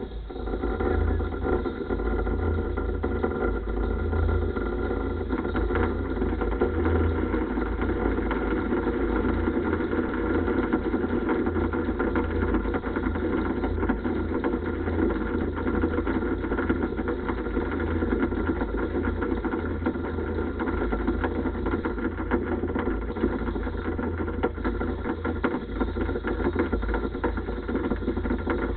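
An engine running steadily at a constant speed, starting abruptly and holding the same pitch throughout.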